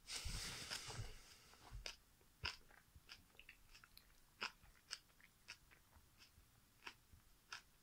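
A person chewing banana together with its peel, close up: a denser stretch of chewing in the first second, then faint, scattered wet mouth clicks as the chewing slows.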